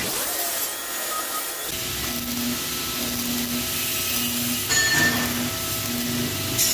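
Electric arc welding on a steel tube frame: the arc makes a steady hiss, with a short louder burst about five seconds in.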